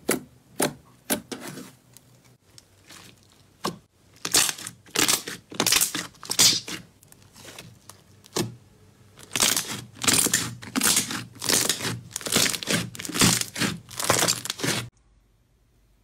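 Slime being poked and squeezed by hand, making sharp clicking pops, then repeated crackling, squishing bursts about twice a second that cut off suddenly near the end.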